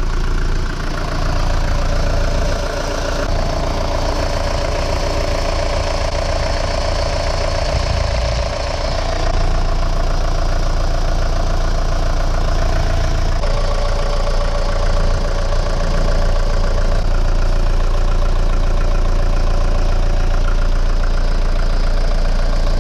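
Classic Mercedes-Benz W123 engine idling steadily, with its accessory drive belts running.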